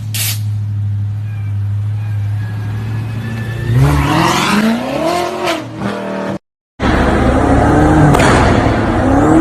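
BMW car engine idling steadily, then revved up and down several times starting about four seconds in. After a sudden brief cut, another car engine runs loudly with revs rising and falling.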